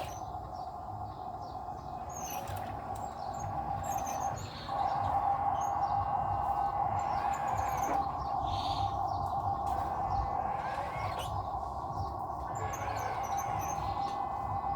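Birds chirping over a steady droning hum that gets louder about four and a half seconds in.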